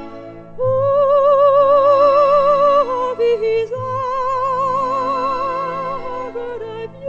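Coloratura soprano singing an operatic aria: after a brief pause, two long high held notes with a wide, even vibrato, each followed by a few shorter, lower notes, over soft sustained accompaniment.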